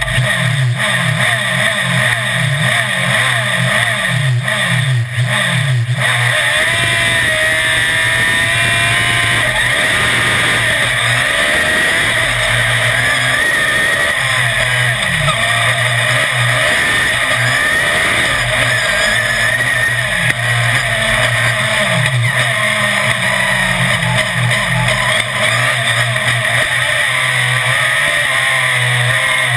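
Autocross race car engine running hard at high revs, heard from the bonnet. Its pitch climbs and drops back again and again in the first six seconds, then stays high, rising and falling with the throttle.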